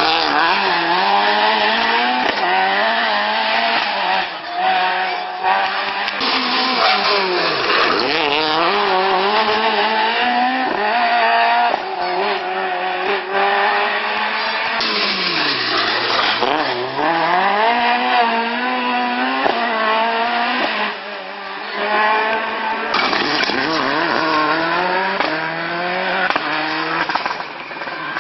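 Rally car's engine revving hard at full throttle, climbing in pitch through each gear with sharp drops at the changes, and two deeper drops where it comes off the throttle.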